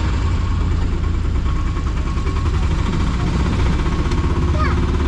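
Auto rickshaw's single-cylinder engine running steadily on the move, heard from the passenger seat as a strong low hum with road noise.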